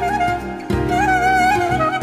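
Background instrumental music: a wavering, vibrato-laden melody over held accompaniment notes, with the accompaniment restarting about a third of the way in.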